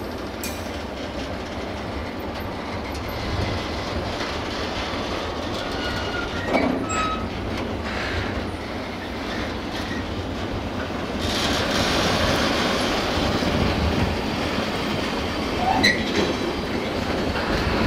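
Freight train of loaded car-transporter wagons rolling past, a steady rumble and clatter of steel wheels on the rails with a couple of brief wheel squeals. The rolling noise grows louder about two-thirds of the way through.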